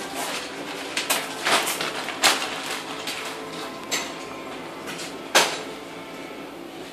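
Irregular knocks and clatter of tools and small parts being handled on a bare concrete floor, about six sharp ones, the loudest about five seconds in.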